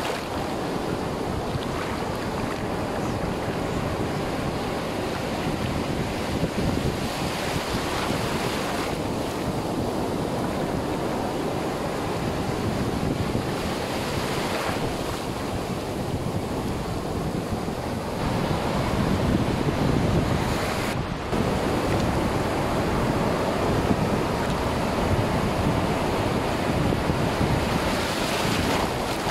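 Surf breaking and washing over a shallow sandy beach, with wind buffeting the microphone.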